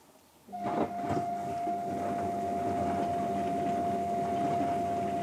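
Panasonic NP-TA4 dishwasher's wash pump starting up about half a second in and running with water churning, over a steady high-pitched whine: the abnormal high sound that the owner says has suddenly begun.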